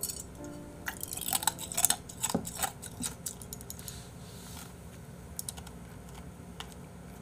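Drinking glass clinking and knocking as it is handled and set down on a desk: a quick cluster of sharp clicks about one to three seconds in, then a few faint taps.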